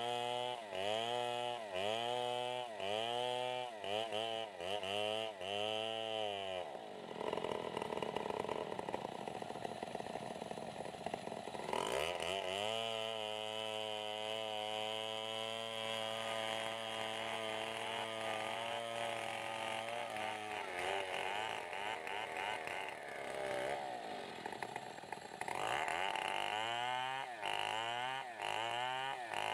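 Stihl 070 two-stroke chainsaw cutting timber into planks, its engine pitch rising and falling about twice a second. From about seven seconds in it runs more evenly for a while, and the rising and falling returns near the end.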